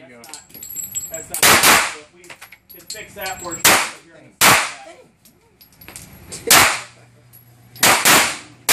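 .45 pistol being fired in an indoor range lane: about seven sharp shots at uneven spacing, two of them in quick pairs, each with a short echo off the walls.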